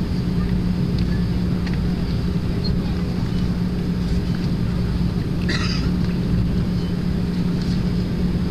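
Steady cabin noise of an Airbus wide-body airliner taxiing, its jet engines at idle with a steady low hum and rumble, heard from inside the cabin by the wing. A brief hiss about five and a half seconds in.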